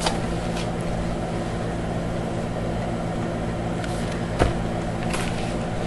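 A steady hum in the room, with a few light knocks and clicks as items are handled and set down on a table. The sharpest knock comes about four and a half seconds in.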